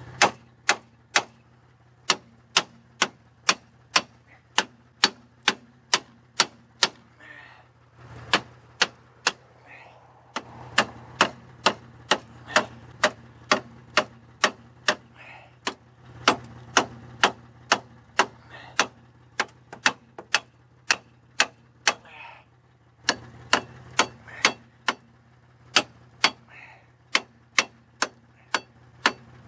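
Repeated hammer blows on a seized brake drum, struck about two times a second in long runs with a couple of short pauses, to break the drum free of brake shoes locked onto it. A faint low hum runs underneath.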